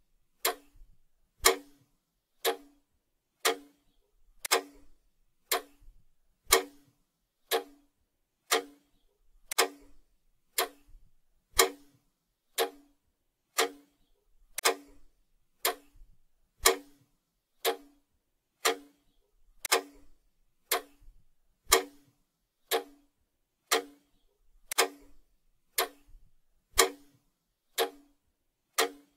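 Clock-tick sound effect ticking steadily about once a second, counting down a 60-second answer timer.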